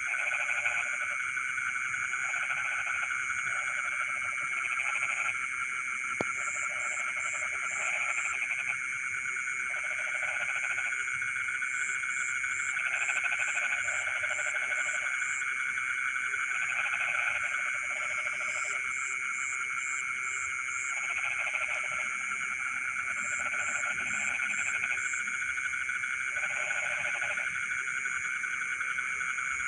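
Dense chorus of frogs calling in rice paddies: a steady trill under repeated pulsed croaks about once a second. Short runs of four or five high chirps come through every few seconds.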